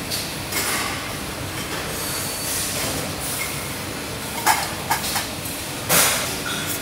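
Metal bottle bodies clinking and scraping against one another as they are handled and sorted, with several sharp clinks in the second half, over a steady hiss of factory background noise.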